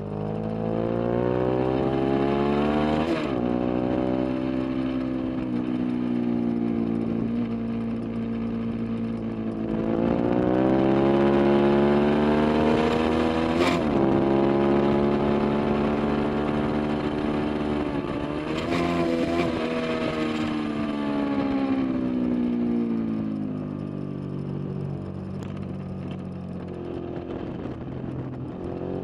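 Sport motorcycle engine at racing speed, rising in pitch under hard acceleration and falling away between, with sharp breaks in pitch at gear changes about 3, 14 and 19 seconds in.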